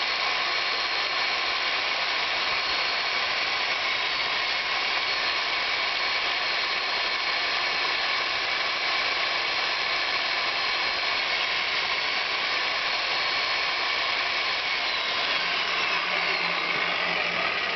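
Electric drill running steadily, turning a homemade core bit that grinds into stone. Near the end its whine slides down in pitch.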